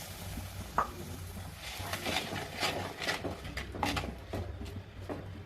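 A cooking utensil scraping and clinking against a cooking pot in a string of short, irregular knocks and scrapes, over a low steady hum.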